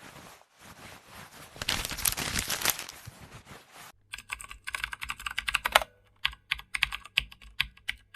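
A hiss of noise that swells and fades over about four seconds, then a run of rapid, irregular clicks in quick bursts with short pauses.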